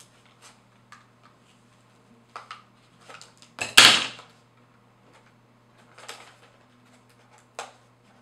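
Plastic and cardboard retail packaging being handled and opened: scattered light clicks and rustles, with one loud crackle lasting about half a second a little over three and a half seconds in.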